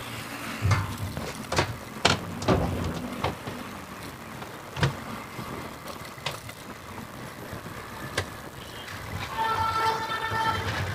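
Ride noise from a moving motorcycle: steady road and wind noise with a few sudden knocks. Near the end a vehicle horn sounds for about a second and a half.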